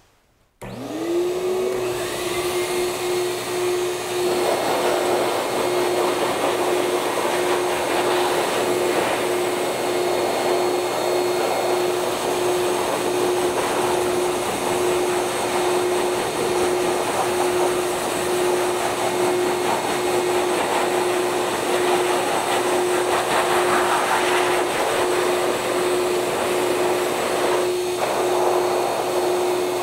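Master Blaster 4.0 bird blower switched on, its motor spinning up within about a second to a steady whine over rushing air. The hiss of the air stream swells and fades as the nozzle is moved over the pheasant's feathers to dry them.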